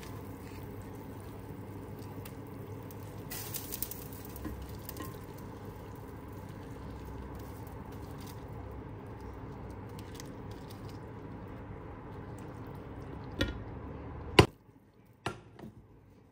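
Hot liquid poured steadily from a saucepan over a baked burek in its pan, making a continuous wet splashing noise. Near the end come two sharp knocks, the second the loudest, after which it goes much quieter.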